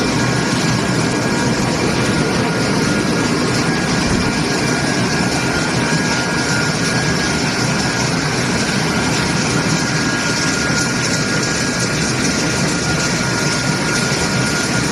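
Sawdust pellet mills and conveyors of a wood pellet production line running: a loud, steady machine drone with a high, even whine over it.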